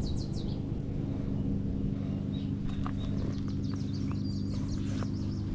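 A steady low mechanical hum, like an engine running, with small birds chirping over it near the start and again through the second half.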